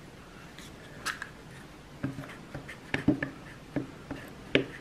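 A one-handed bar clamp being fitted and squeezed tight onto two pieces of wood held together, making a handful of short, irregular clicks, the loudest near the end.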